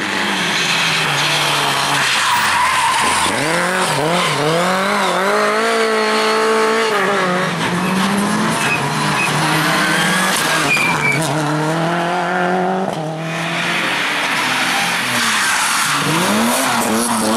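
Rally car engine revving hard, its pitch climbing and dropping repeatedly through gear changes, with tyres skidding and squealing on the tarmac. The revs dip for a moment about thirteen seconds in, then rise and fall in quick blips near the end.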